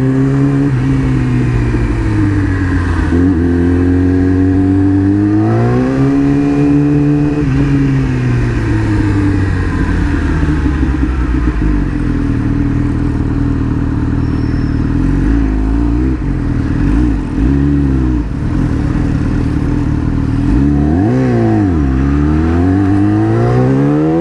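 Yamaha R6 inline-four sport-bike engine running under way at low speed, its revs repeatedly rising and falling with the throttle and gear changes. Near the end the revs drop sharply and then climb again.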